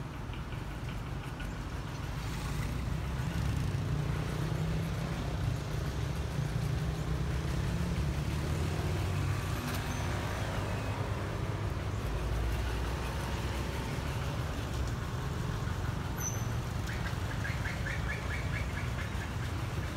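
Steady low outdoor rumble, with faint bird chirps and a short run of rapid chirps near the end.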